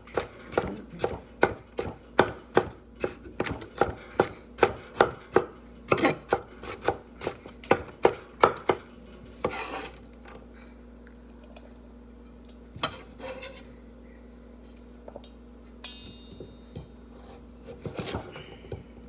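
Kitchen knife chopping vegetables on a cutting board: a steady run of about three strokes a second that stops about ten seconds in, then only a few scattered knocks.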